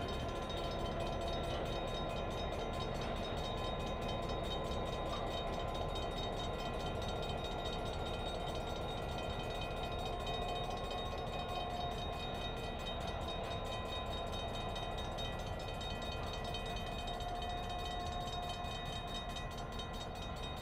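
EMD GP9 diesel-electric locomotive, its 16-cylinder two-stroke 567 engine running steadily while switching freight cars: a low drone with a steady whine on top.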